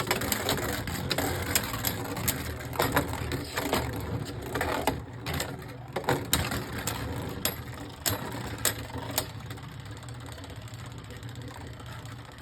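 Two Beyblade Burst spinning tops, Geist Fafnir and Winning Valkyrie, spinning in a plastic stadium: a steady whir that slowly fades as they lose speed, with many sharp irregular clicks as they clash with each other and the stadium wall.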